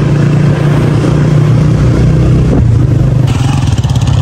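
Motorcycle engine running steadily while riding, with wind rushing over the microphone. The sound shifts a little past three seconds in.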